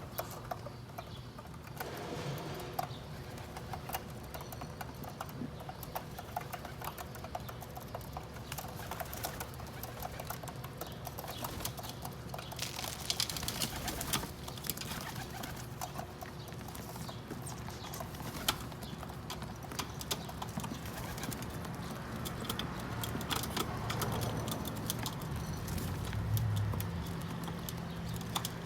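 Feral pigeons cooing, with a scatter of small clicks and taps as they peck at sunflower seeds on the roof.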